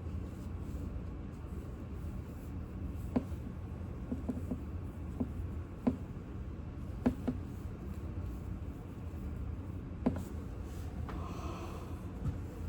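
Light, irregular clicks of a crochet hook and yarn being worked by hand, a few sharp ticks spaced a second or more apart, over a steady low hum.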